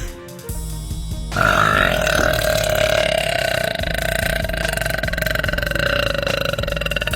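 A girl belching one long, drawn-out burp that starts about a second in and holds a nearly steady pitch for about six seconds.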